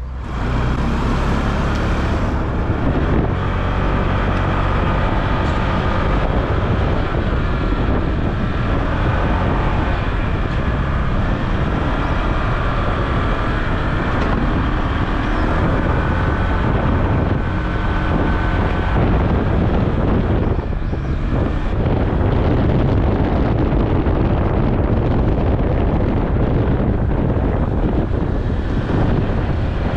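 Honda ADV150 scooter under way: its single-cylinder engine runs steadily, with wind noise rushing over the microphone.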